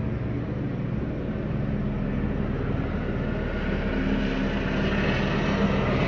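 Police helicopter running overhead, a steady rotor and engine drone that grows louder in the second half.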